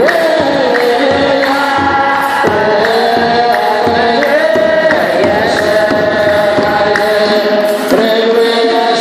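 Eritrean Orthodox liturgical chanting, led by a priest singing into a microphone in long, sliding melodic lines over a steady beat about twice a second.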